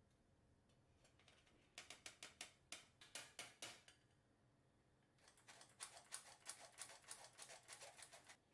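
Rapid rattling clicks of a stainless steel squeeze-handle flour sifter sifting cocoa powder and flour, in two runs of about six clicks a second, the second run longer.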